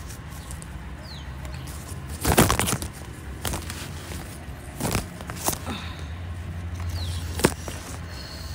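Kitchen knife cutting soft jelly against a hard surface, with hands handling the pieces: scattered knocks and rustles, the loudest about two and a half seconds in and a sharp click near the end. A steady low hum runs underneath.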